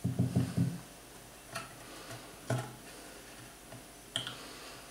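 Handling of a wooden drawer and its small nail stopper: a short cluster of low knocks at the start, then three single sharp clicks spread over the next few seconds, as the stopper is set back in place to lock the hidden compartment's lid.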